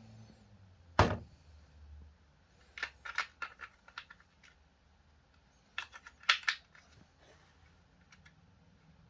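Hard plastic clicks and taps from a toy sword and its packaging being handled: one sharp click about a second in, then quick runs of small clicks around three and six seconds in.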